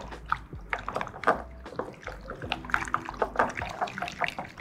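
Chopsticks vigorously mixing a very wet pork and prawn wonton filling, loosened with chicken stock and egg, in a glass bowl: wet squelching and slapping of the mixture, with frequent quick clicks of the chopsticks against the glass.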